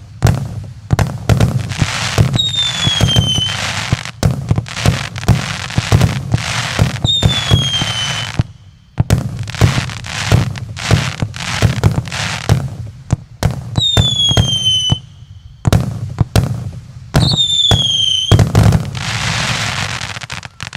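A 100-shot, one-inch-calibre consumer fireworks cake firing in rapid volleys: a quick stream of launch thumps and bursts with crackling, and four whistles falling in pitch. The firing breaks off briefly twice and stops near the end as the cake burns out.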